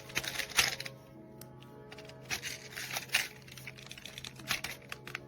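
Music playing with sustained tones, broken by irregular sharp clicks and taps.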